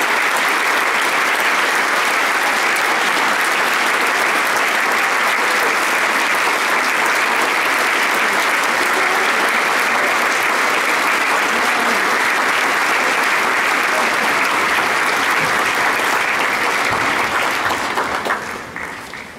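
Large audience applauding steadily, the applause dying away near the end.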